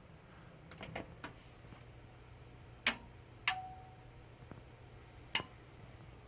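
Sharp clicks from fire alarm control panel equipment: a few light ones about a second in, then three loud clicks spaced a couple of seconds apart, the second followed by a short low beep, over a steady low hum.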